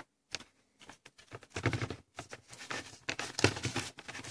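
Handling noise from a packing box: cardboard, foam packing and papers rustling, with scattered small knocks and clicks as things are moved about.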